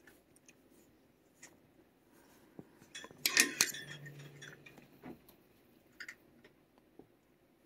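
Light clicks and clinks of metal on metal, with a louder scraping rattle about three seconds in, from a thin metal toy rod knocking and scraping against the wire bars of a cat cage.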